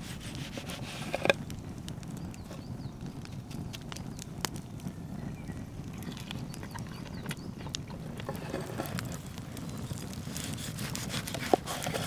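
Campfire crackling steadily with scattered small pops, over a low rumble. Sharp knocks stand out about a second in and again near the end, where a large knife is cutting through the sandwich on the wooden board.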